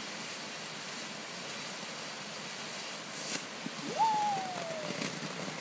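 Ground fountain firework hissing steadily as it sprays sparks, with a short crackle a little past three seconds in. About four seconds in, a single drawn-out tone slides down in pitch over about a second.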